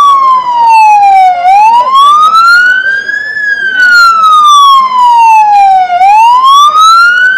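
Electronic emergency siren sounding a slow wail: a single loud tone that falls, sweeps back up and falls again, about one full rise and fall every four and a half seconds.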